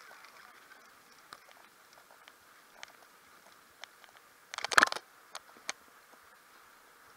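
Bicycle riding over paving and road, with a faint steady hiss and scattered small clicks and rattles. One louder rattle of about half a second comes about two-thirds of the way through.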